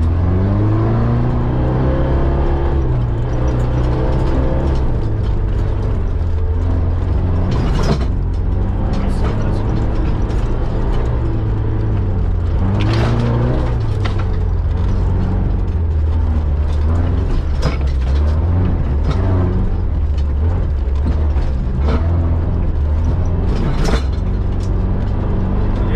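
Mitsubishi Pajero off-road vehicle driven hard over a rough dirt track: the engine revs rise and fall. There is constant clattering and rattling from the body and suspension, with a few sharper knocks over bumps.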